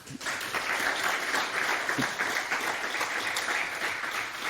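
Audience applauding, a dense steady clapping that starts right at the beginning and keeps going.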